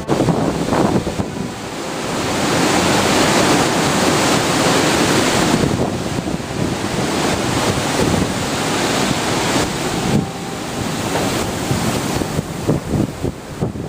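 Wind buffeting the microphone over the wash of ocean surf, swelling louder for a few seconds about two seconds in.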